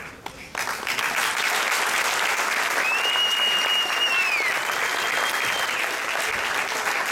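Audience applause that breaks out about half a second in and carries on steadily, with someone whistling a long rising-then-falling whistle partway through.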